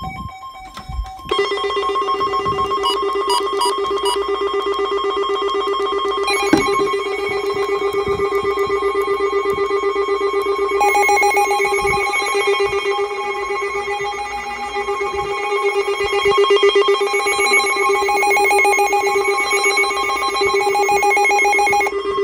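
Four weather radios sounding their siren alerts together: loud, steady electronic tones layered over one another with a fast pulsing. More radios join about a second in, around six seconds in and around eleven seconds in.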